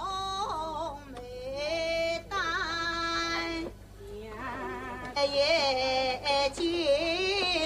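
A woman singing unaccompanied in long held phrases, her voice wavering in pitch on the sustained notes, with short breaths between phrases about a second in and just before the middle.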